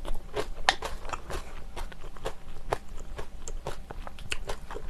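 Close-miked mouth sounds of eating sundae rice soup: wet chewing and sharp, irregular clicks several times a second, with a spoon dipping into the earthenware pot.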